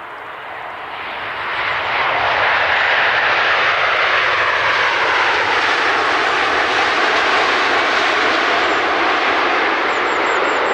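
Large jet airliner flying past: its engine noise swells over the first two seconds and then holds loud, with a whine that slides steadily down in pitch as the aircraft passes.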